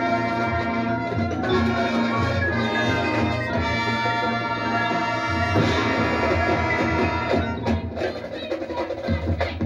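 Marching band playing: the brass section holds loud chords over drumline percussion. Near the end the sound thins for a couple of seconds to scattered drum hits.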